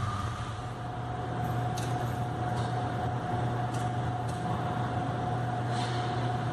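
Volkswagen Golf Mk3 GL 1.8 four-cylinder petrol engine idling steadily, with a constant thin whine over the hum and a few faint clicks.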